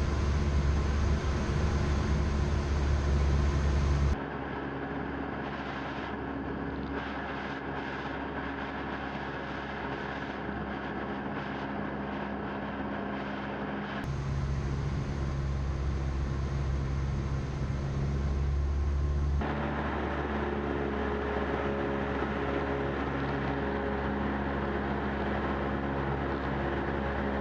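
Steady drone of a Cessna 172M's four-cylinder engine and propeller heard inside the cockpit. Its loudness and tone change abruptly a few times.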